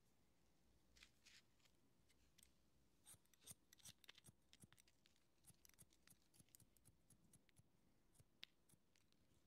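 Barber's scissors snipping through hair in quick, irregular runs of soft, close snips. The snips start about a second in and come thickest through the middle.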